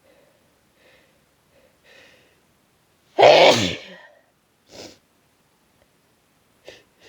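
A single harsh sneeze from a head cold about three seconds in, preceded by short catching breaths. After it comes a short breath, and a quick intake of breath near the end.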